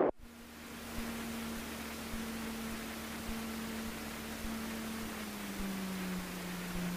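Cessna 150's four-cylinder Continental O-200 engine droning steadily at taxi power under a steady hiss. A little after five seconds in, the drone drops slightly in pitch.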